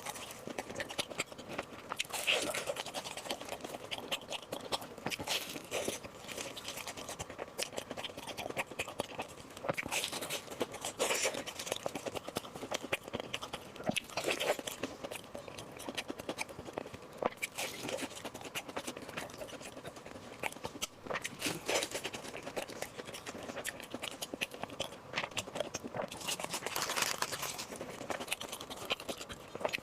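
Close-miked eating sounds: a person biting, chewing and crunching food, with crackly mouth noises coming in bursts every few seconds.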